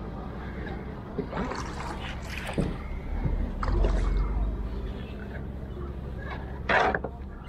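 Water lapping and sloshing against a small wooden canoe, with scattered knocks and rustles of a hand line being hauled in, over a low steady rumble. A short, louder burst of noise comes near the end.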